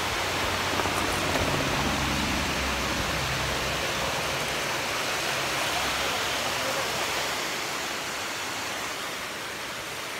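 Steady rush of white water pouring down a stepped concrete dam spillway, a little fainter near the end.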